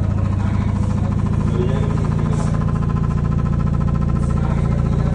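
LG washing machine running with a loud, steady mechanical hum.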